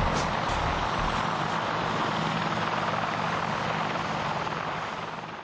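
AgustaWestland AW101 helicopter in flight: a steady rush of turbine and rotor noise over a low hum, fading out near the end.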